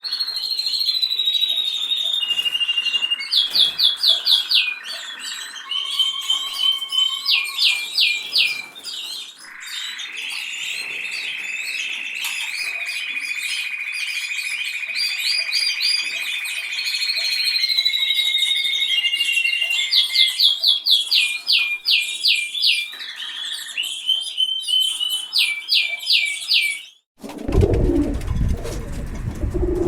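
Canary singing a long, varied song of rapid trills, quick repeated notes and long held whistled tones. Near the end it cuts off, and a pigeon starts cooing low.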